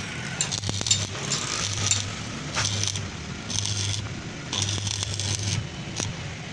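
Electric arc welder laying short bursts of weld on sheet metal: about six stops and starts, each a steady buzz with crackling spatter, with a few sharp metal clinks between them.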